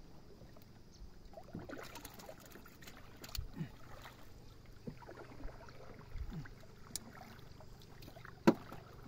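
Wooden canoe being paddled: faint swishes of the wooden paddle in the water with a few light knocks against the wooden hull, and one sharp knock near the end.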